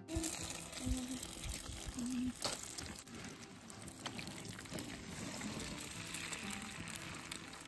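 Eggs sizzling in hot oil in a frying pan over a charcoal fire, with a few sharp knocks in the first few seconds as eggs are cracked into the pan.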